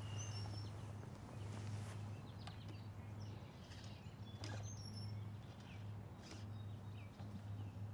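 Outdoor ambience: a steady low hum that swells and fades, a few short bird chirps near the start, and three light clicks spread through.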